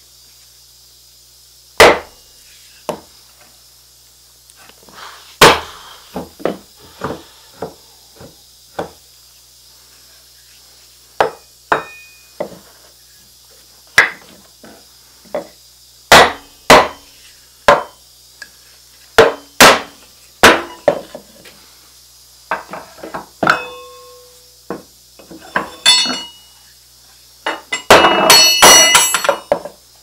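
Sharp wooden knocks and taps at irregular intervals as boards are handled and knocked into line on a wooden workbench. Near the end there is a short jingling metal rattle, like nails being picked from a box.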